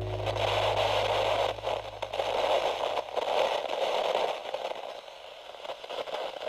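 Crackling, hissing TV static sound effect that rises and falls unevenly. Under it, a low held note of music fades out in the first couple of seconds.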